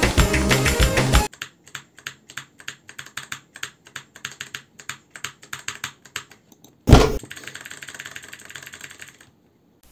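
Background music cuts off about a second in. After that, a clicky blue-switch mechanical keyboard (Altec Lansing ALG K8614) is typed on in quick, uneven key presses, each a sharp click. A single loud thump comes about seven seconds in, followed by faint clicking and hiss that stops shortly before the end.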